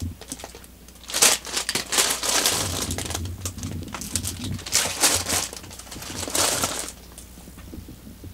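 Rustling and crinkling in bursts as cats scuffle in a plush fabric cat bed. It starts about a second in and stops about a second before the end.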